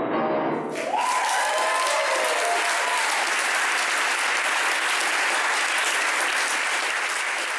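Concert audience applauding steadily, with one voice calling out a rising cheer about a second in.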